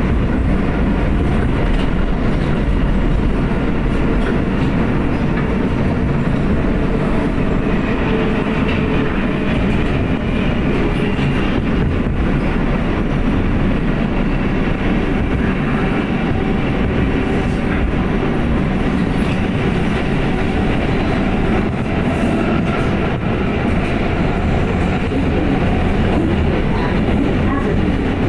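R143 subway car running at speed, heard from inside the car: a steady, continuous rumble of wheels on the rails and the running gear.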